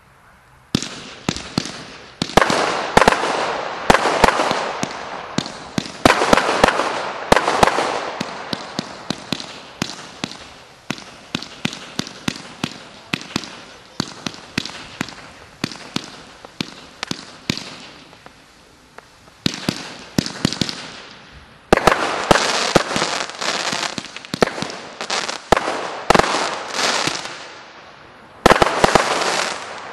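Multi-shot consumer firework cake firing: a long run of sharp launch and burst reports with dense crackling between them. It starts about a second in, eases off briefly a little past halfway, picks up again, and ends with a last loud flurry that dies away.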